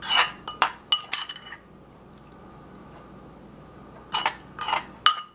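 A metal spoon clinking and scraping against dishes while spooning sauce out of a bowl: a cluster of sharp, ringing clinks in the first second and a half, then another cluster about four seconds in.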